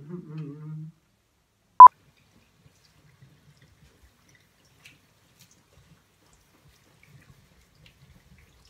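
A brief hum of a man's voice, then about two seconds in a single short, loud 1 kHz beep: a '2-pop' sync beep. After it, near silence with a few faint drips and ticks from the running tap.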